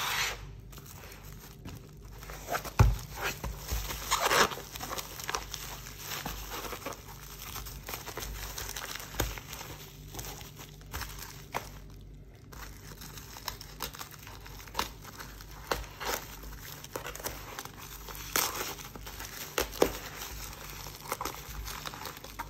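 A parcel's black plastic wrapping being handled, crinkling and crackling in irregular bursts, with a single thump about three seconds in.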